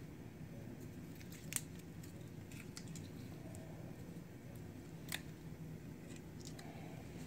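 Garlic cloves handled and pulled apart in the fingers: a few faint crackles of papery skin and two sharp clicks, about a second and a half in and about five seconds in, over a steady low hum.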